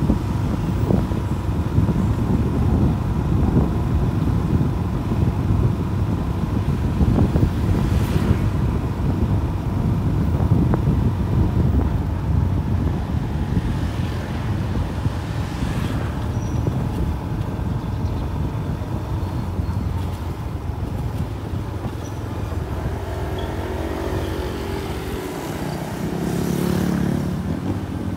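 City street traffic heard from a moving vehicle: a steady low road and wind rumble, with motorbikes and cars going by. Near the end, a nearby engine's note rises and falls for a few seconds.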